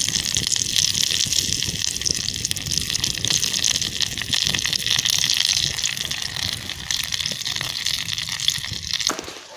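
Wood campfire burning up close, with a steady loud hiss and dense crackling of the burning twigs and branches. It cuts off suddenly near the end.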